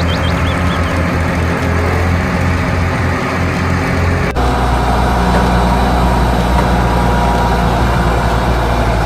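Heavy truck engine running steadily with a pulsing low rumble. A little over four seconds in it cuts abruptly to a deeper, smoother engine drone.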